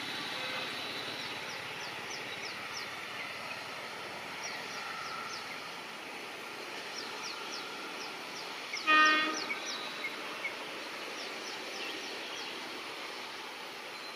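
WAP-7 electric locomotive sounding one short horn blast about nine seconds in, over steady background noise as the train approaches. High chirps from birds repeat throughout.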